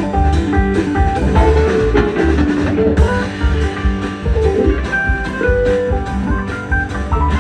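A live band playing an instrumental break: a lead guitar picking a melody over bass and a steady beat.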